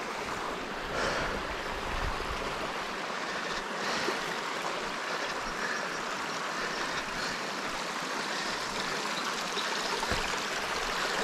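Shallow river water running over rocks: a steady rushing of a small riffle or trickle.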